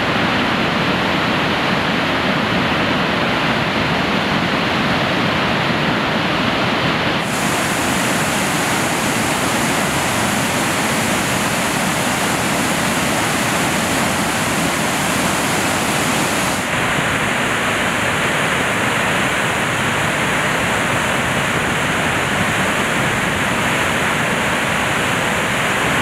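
Steady, loud rushing of Gullfoss, the broad multi-tiered waterfall on the glacial Hvítá river, heard at close range from the bank beside the churning falls. The rush brightens about seven seconds in and shifts again near seventeen seconds.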